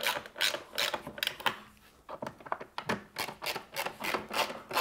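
Screwdriver turning T25 Torx screws down into the plastic top cover of a Briggs and Stratton 163 cc engine: a quick run of clicking strokes, about four a second, with a short break about one and a half seconds in.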